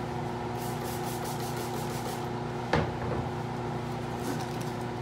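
Laminar flow hood's fan running with a steady hum. A sharp knock comes a little under three seconds in, and a few brief high hisses come through.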